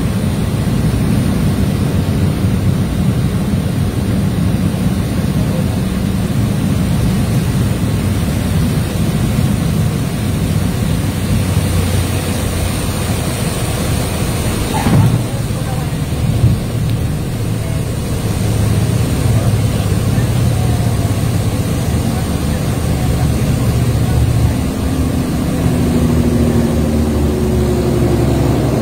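Cabin noise of a high-wing light aircraft landing: steady engine and airflow noise, a brief loud bump about halfway through as the wheels touch the runway, then the engine running on during the roll-out.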